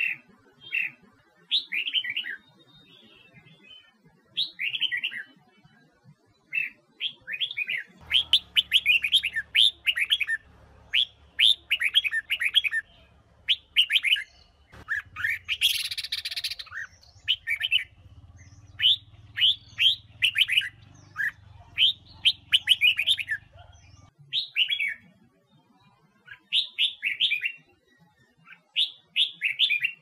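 Female red-whiskered bulbul singing: short, quick warbling phrases repeated about once a second, with a scratchier burst around the middle. A faint low hum sits under the song through the middle part.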